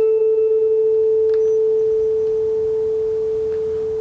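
Tuning fork on a wooden resonator box ringing just after being struck: one steady pure tone that slowly fades, with faint higher overtones dying away in the first moments.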